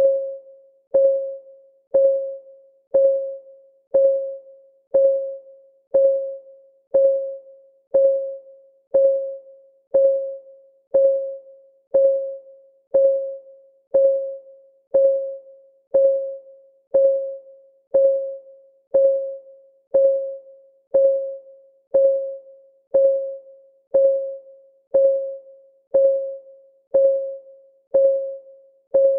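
Countdown timer's clock-ticking sound: one tick per second, steady and even. Each tick is a short click with a low ringing tone that dies away quickly.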